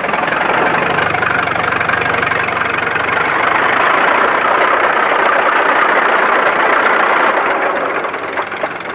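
Crawler tractor running as it drives up, its engine and track noise growing louder through the middle and easing off near the end.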